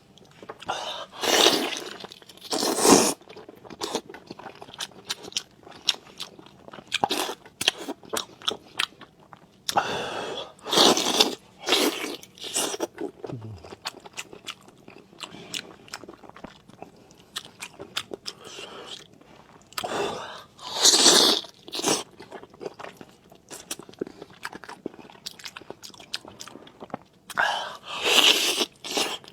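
Close-up eating sounds: a person chewing with wet clicks and lip-smacks, broken by a few louder noisy bursts of about a second every several seconds.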